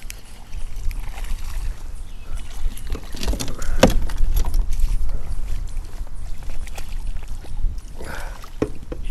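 Handling and water noise on a fishing kayak over a steady low rumble, with a sharp knock about four seconds in and a few smaller knocks near the end.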